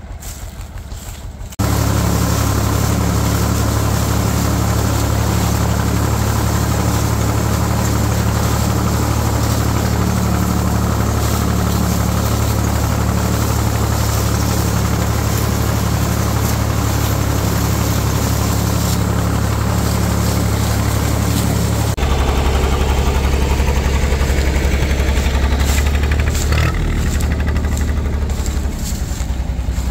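Tractor engine running steadily as it powers a trailed SIP Tornado 80 corn picker harvesting maize, with the machine's mechanical clatter over the engine hum. The sound steps up abruptly about a second and a half in and changes character abruptly about 22 seconds in.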